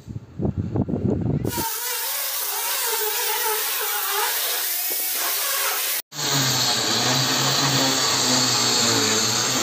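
Electric power drill boring into concrete, running steadily in two takes with a short break about six seconds in. A few knocking footsteps at the very start.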